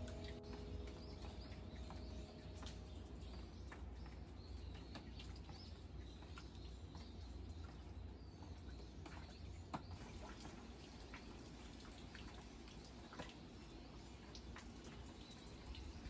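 Faint rain dripping from leaves and eaves onto wet ground, scattered single drips over a low, steady rumble of wind.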